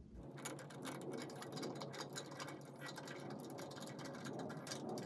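Many small, irregular clicks and light scraping of a tail light lens assembly being handled and lined up with its threads as it is fitted back onto the housing.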